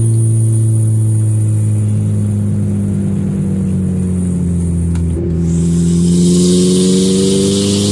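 Engine and open exhaust of a turbocharged 1997 Audi A4, with a 2.5-inch dump pipe, no catalytic converter and a broken exhaust flex joint, heard from inside the cabin and way too loud. The engine note falls steadily for about five seconds as the car eases off, then climbs again as it accelerates.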